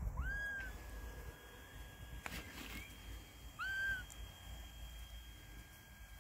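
Kitten meowing twice: two short, high mews a few seconds apart, each rising in pitch and then levelling off, with a faint click between them.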